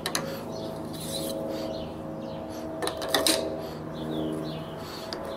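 A few light clicks and knocks of a plastic fork spring spacer being handled and fitted into a motorcycle fork tube, the clearest cluster about three seconds in, over a steady background hum.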